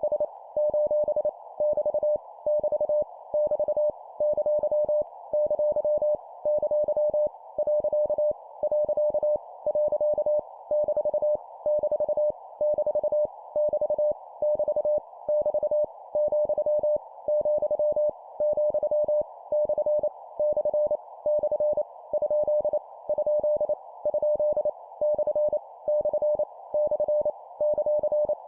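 Morse code (CW) sent at 25 words per minute as a single steady mid-pitched sidetone keyed on and off in dots and dashes, random punctuation characters each repeated three times. The groups are separated by brief pauses, over a faint continuous hiss around the tone.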